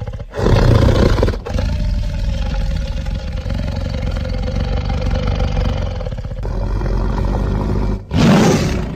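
Dinosaur roar sound effect for Sauroniops: a loud roar, then a long, lower rumbling growl, then a second short, loud roar near the end.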